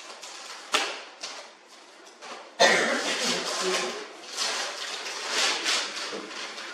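Gift wrapping paper being torn open and crinkled: a sudden loud rip about two and a half seconds in, followed by several seconds of uneven tearing and rustling paper.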